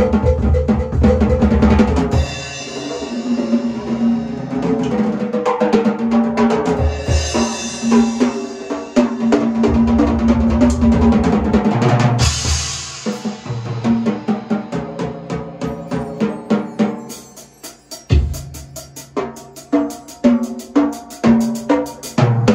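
A large drum kit played live: rolling fills across toms, snare and bass drum, with a cymbal crash about halfway through, then a steadier run of single hits near the end.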